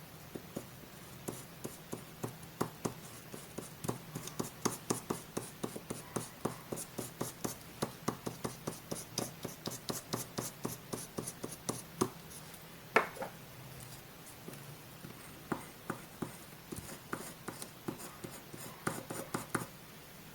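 Close-miked paper crafting for a collage: a quick run of short, sharp paper strokes, two or three a second. One louder crack comes about thirteen seconds in, and the strokes are sparser after it.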